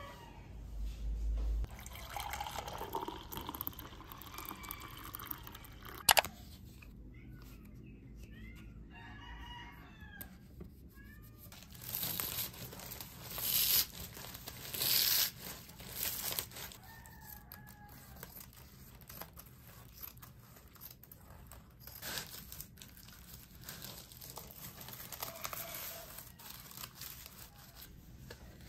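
Honeycomb kraft packing paper crinkling and rustling under hands wrapping a parcel, loudest in a few bursts about halfway through. A rooster crows once about a third of the way in, and there is a single sharp click shortly before it.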